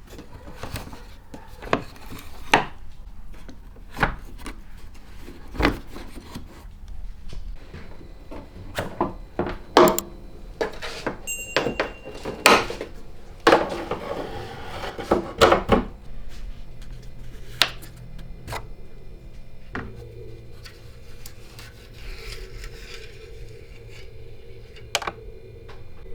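Irregular knocks, clicks and scraping of hard objects being handled, loudest in a run of clatter in the middle, with a steady low hum setting in after about twenty seconds.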